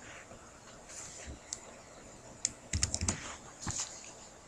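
Computer keyboard being typed on: scattered keystrokes, with a quick run of them about three seconds in, as login details are entered.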